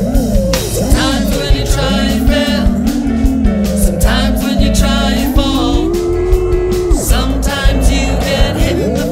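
Rock song with a sung melody over guitar, bass and a steady drum beat.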